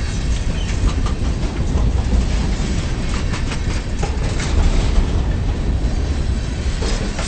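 Freight train cars rolling past, with a steady low rumble and wheels clacking over rail joints, most densely around the middle.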